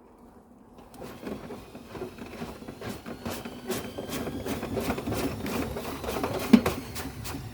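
Vestel washing machine drum starting to turn, with rapid knocking and rattling that comes in about a second in and grows louder, and one sharp knock near the end.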